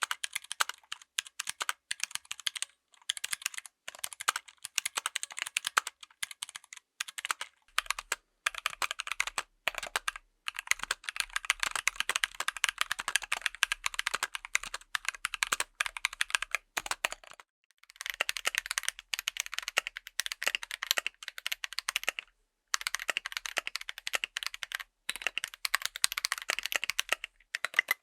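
Fast, continuous typing on a full-size mechanical keyboard fitted with tactile switches, a dense run of key clacks with a few brief pauses.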